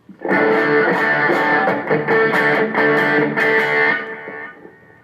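Electric guitar played through a Zoom G3Xn multi-effects pedal's overdrive patch with the gain turned down a little. It plays a phrase of repeated picked chords, then lets the last one ring and fade out near the end.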